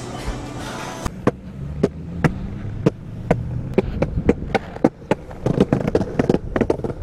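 Longboard rolling on a concrete sidewalk: a low rumble from the wheels, with sharp clacks as they cross the joints and grooves in the pavement. The clacks start about a second in and quicken from one or two a second to three or four a second.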